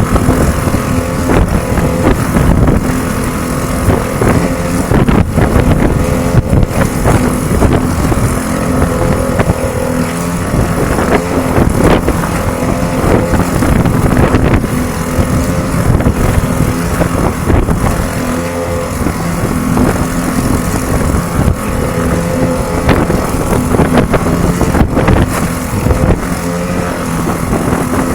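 A small boat motor running at a steady pitch under heavy, gusting wind noise on the microphone.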